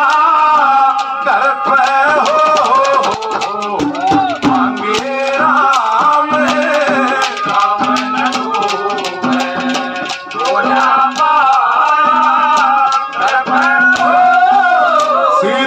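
Live Haryanvi ragni folk music: a wavering melody over a low note repeated in long held pulses, with quick, dense percussion strokes.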